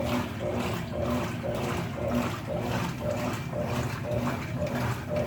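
Consul CWL16AB washing machine running on a test cycle after a mechanical rebuild, water sloshing inside the tub in a rhythm that repeats about twice a second.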